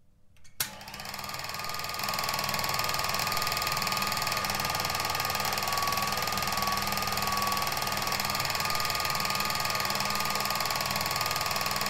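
Rus film projector switched on with a click, coming up to speed over the first second or so, then running with a rapid, even mechanical clatter of its film-advance mechanism over a steady motor hum.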